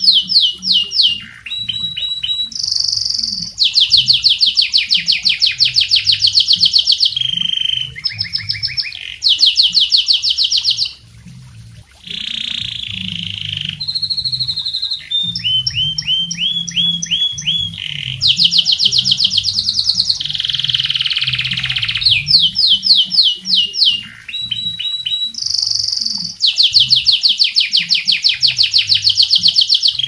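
Domestic canary in full song: a long, loud run of rapid trills, switching from one repeated phrase to the next every second or two, with one short pause about eleven seconds in.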